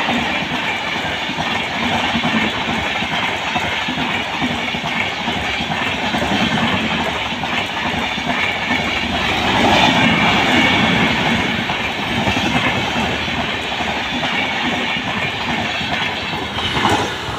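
Rajdhani Express passenger coaches passing close at high speed: a loud, steady rush and rumble of wheels on rails. The sound changes as the rear power car goes by near the end.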